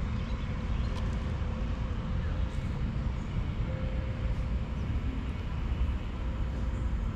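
A steady low rumble of outdoor background noise, with a faint thin tone that comes and goes.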